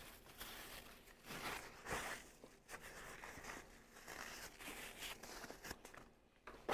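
Close-up eating noises: irregular chewing and mouth sounds from a person eating a chili cheese dog.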